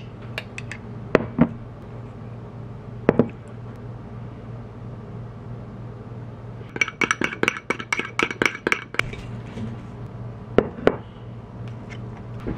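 Metal spoon clinking against a ceramic bowl while stirring a sauce: a few separate knocks, then a quick run of ringing clinks for about two seconds, and two more knocks near the end. A low steady hum runs underneath.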